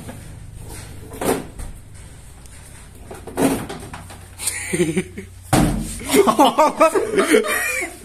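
Knocks and bumps as a microwave oven is lifted off a counter and carried, then a person laughing in a run of short bursts near the end.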